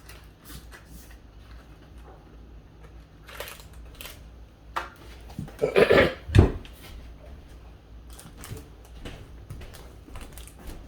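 A snack package being handled and opened: scattered light clicks and crinkling, with a louder rustle and a sharp thump about six seconds in.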